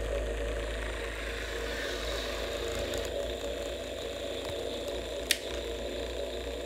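Hasbro Spengler's Neutrona Wand replica's idle hum sound effect: a steady electronic drone from the powered-on wand. A single sharp click comes about five seconds in.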